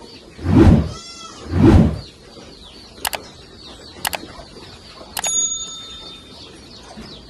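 Goat shed sounds: a goat bleats with a wavering call about a second in, between two loud low blasts. Then come three sharp metallic clinks about a second apart, the last ringing briefly like a small bell, while small birds chirp throughout.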